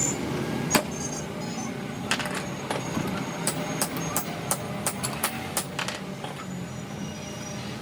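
A string of sharp clicks and taps as small metal grinder parts and hand tools are handled on the bench, about a dozen over a few seconds, against a steady low background hum.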